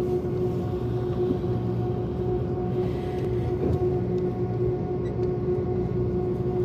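Cabin noise of an airliner taxiing: a steady low rumble with an even, unchanging hum from the idling jet engines.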